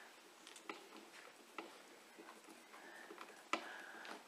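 Hand screwdriver driving a self-tapping screw through a metal snorkel bracket into a pickup's body panel: faint scattered ticks and clicks, with one sharper click about three and a half seconds in.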